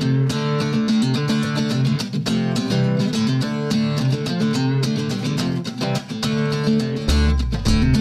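Background music led by strummed guitar, with a steady rhythm; deep bass notes come in near the end.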